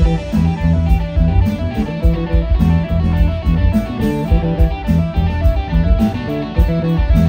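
Live rock band playing an instrumental passage: electric guitar and electric bass over drums, with cymbals keeping a steady beat.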